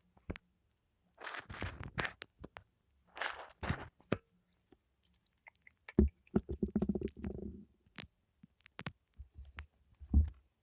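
Foam squished and rubbed close to the microphone in short crackly bursts, with a pulsing, squeaky stretch past the middle and a soft thump near the end.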